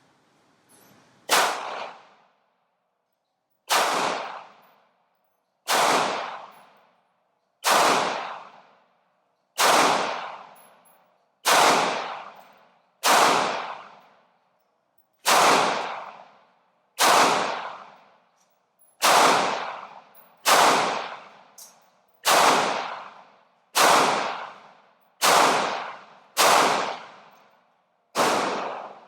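Glock 19 9mm pistol fired in slow, deliberate single shots, sixteen of them about one every one and a half to two seconds, each sharp report trailing off in a ringing echo. Measured shots while the red dot sight is being zeroed.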